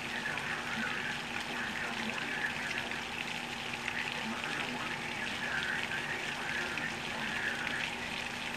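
Heavy hurricane rain falling steadily on pavement and grass, a constant hiss.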